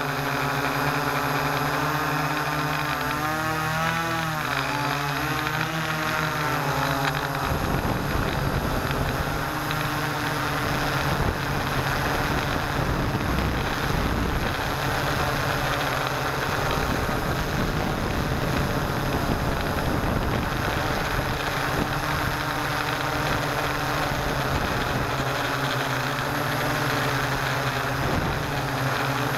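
Hexcopter's electric motors and propellers droning, picked up by the camera riding on the craft. The pitch wavers up and down for the first seven seconds or so, then settles into a rougher, steadier drone.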